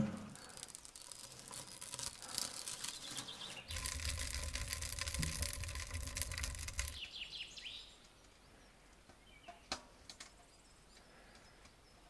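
Wood fire burning in a tent stove, crackling with a low draft rumble for a few seconds, then a few short bird chirps and a quiet snowy forest with a couple of faint clicks.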